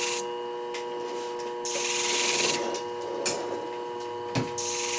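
Flat-hone shear-sharpening machine running with a steady motor hum, while the tip of a hair shear blade is touched to the spinning wheel in a few short grinding hisses to take the sharpness off a too-pointy tip. A few light clicks of the shears being handled.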